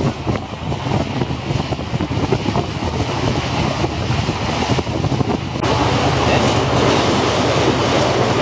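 Tour boat's engine running with a steady low drone under the rush of wind and water; the hiss grows suddenly louder a little over halfway through.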